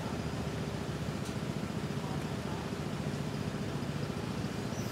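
Steady low rumble of a motor vehicle's engine running, with a faint even hum over it.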